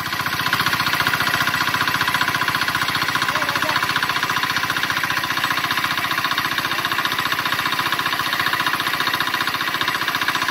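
Single-cylinder air-cooled diesel engine (Z170F, 4 hp) running steadily under load, driving a portable water pump, with a fast, even beat of firing strokes.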